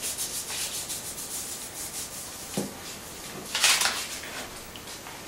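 A pen scratching on a sheet of paper as a word is written out in a run of short strokes, with one louder scrape about three and a half seconds in.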